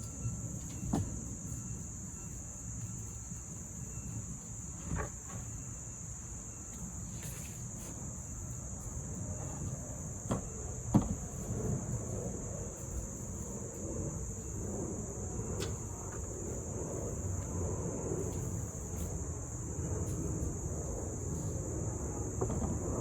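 Steady high-pitched insect chorus over a low background rumble, with a few short knocks and clunks scattered through, the sharpest about eleven seconds in.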